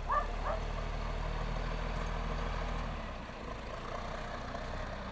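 Caterpillar wheel loader's diesel engine running as it lifts and carries a stripped Ford Explorer, its low steady note changing about three seconds in. A few short high chirps are heard in the first half second.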